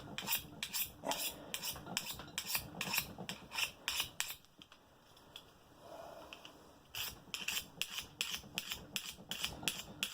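Steel scissor blade scraped along the edge of another pair of scissors in quick repeated rasping strokes, about three a second, with a short pause partway through and then more strokes. This is the edge being dressed to raise a burr and sharpen dull scissors.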